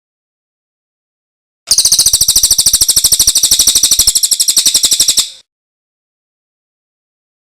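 A recorded songbird singing one fast trill of evenly repeated high notes, starting a little under two seconds in and lasting about three and a half seconds before fading out.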